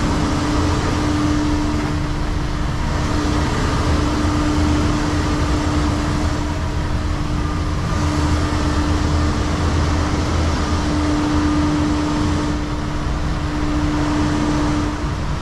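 Volvo semi truck's diesel engine running at low speed as the truck creeps forward, heard inside the cab: a steady low drone with a constant hum over it.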